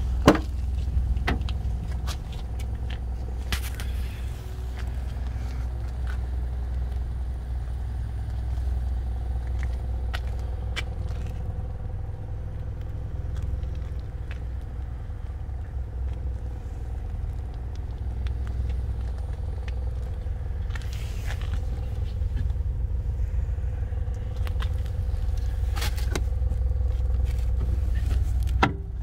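Mitsubishi Pajero Mini Turbo's 659 cc turbocharged four-cylinder engine idling steadily. The tailgate latch clicks open just after the start, and a few handling clicks and knocks follow.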